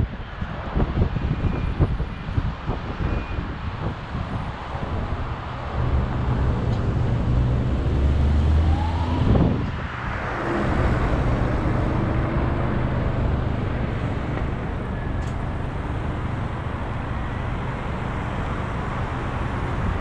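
Car driving through city traffic: steady engine and road rumble, with wind buffeting the microphone in the first few seconds. A short pitch sweep rises and then falls about halfway through.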